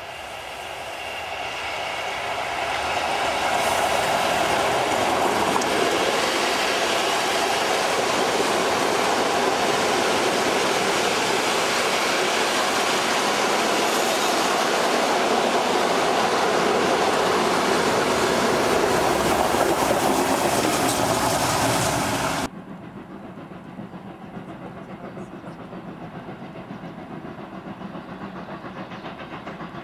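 Steam-hauled passenger train passing close by: the noise grows as the locomotive draws near over the first few seconds, then its coaches roll past with a steady rumble of wheels on rail. About three-quarters of the way through the sound cuts off suddenly, leaving a much fainter steady background.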